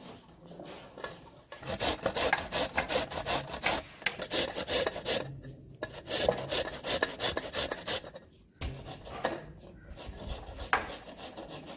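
Carrots being grated on a hand grater: quick rasping strokes about four a second, coming in runs with two short breaks.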